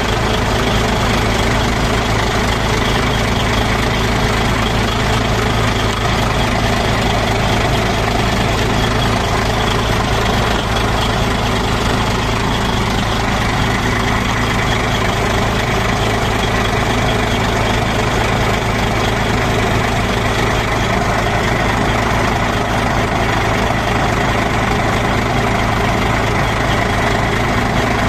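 DAF XF95 truck's straight-six diesel idling steadily, heard close up beside the chassis, left running so its compressor can build air pressure while the frozen air system is not pumping.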